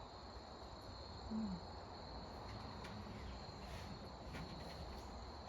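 Crickets trilling steadily in a high, even tone over a low outdoor rumble; a short low voice sound about a second and a half in.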